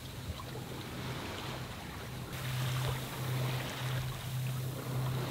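Sailboat under sail with its engine off: waves and water rushing past the hull, with wind buffeting the microphone and a low hum underneath. It grows louder about two seconds in.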